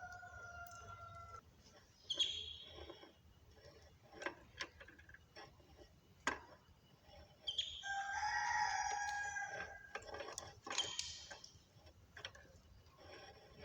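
A rooster crowing twice: a short crow at the start and a longer one about eight seconds in. Scattered sharp clicks and short high chirps from small cage birds come in between.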